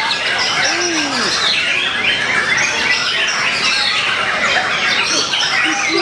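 White-rumped shama (murai batu) singing a loud, continuous run of varied whistles and chattering phrases, over a dense chorus of other songbirds singing at once.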